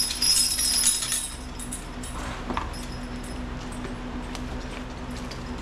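Stainless steel harness chains and rings jingling as a draft horse harness is handled, stopping about a second in. After that a steady low hum with a few faint clinks.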